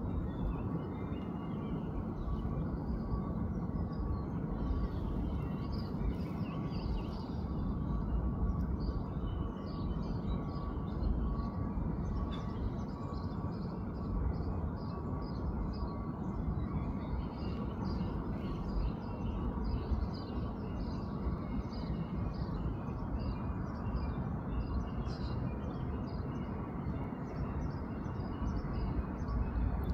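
Outdoor ambience: small birds chirping on and off over a steady low rumble.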